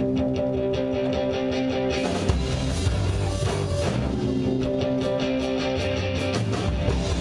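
Live rock band playing: electric guitar chords with the drum kit and bass guitar coming in about two seconds in, then full band with cymbal hits.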